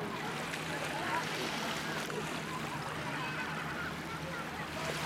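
Faint distant voices over a steady low hum and the wash of lake water.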